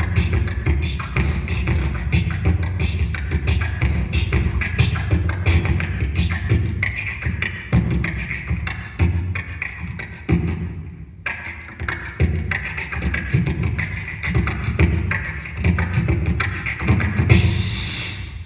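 A child's human beatbox performance amplified through a microphone and PA: fast, steady rhythm of vocal bass-drum kicks, snares and hi-hat clicks. The beat breaks off briefly about ten seconds in, and a long hissing sound comes near the end.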